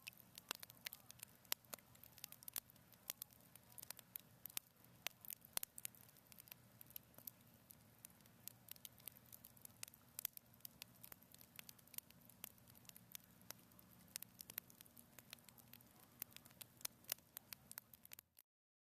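A wood fire crackling: faint, irregular sharp pops, several a second, over a faint low hum, cutting off suddenly near the end.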